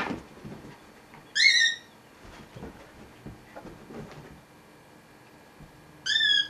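Dog giving two short, high-pitched squeals during play, each about half a second: one about a second and a half in and one at the end, with faint scuffling between.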